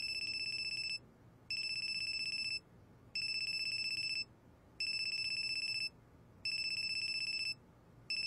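Telephone ringing with an electronic trilling ring: five bursts of about a second each with short gaps, a sixth starting near the end.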